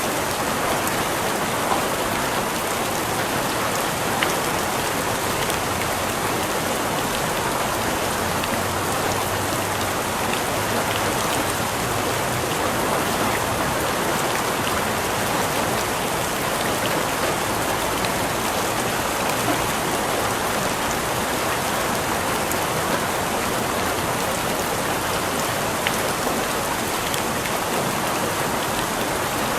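Steady rain falling and pattering on a surface, an even hiss with scattered drops ticking through it.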